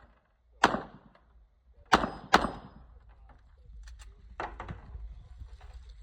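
Pistol shots at steel plates: three sharp shots in the first two and a half seconds, the last two close together, with a brief ring of struck steel. A few quieter cracks follow about four and a half seconds in.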